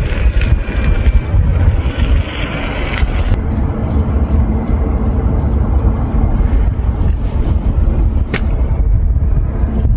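Cars driving around a practice track in the distance, heard under a heavy low rumble of wind on the microphone. A single sharp click about eight seconds in.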